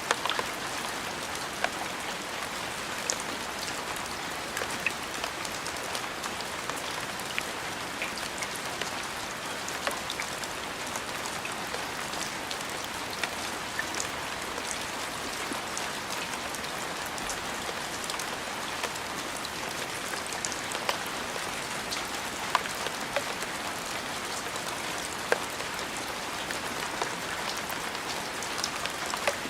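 Steady rain falling on a surface: a constant hiss with scattered sharp ticks of single drops.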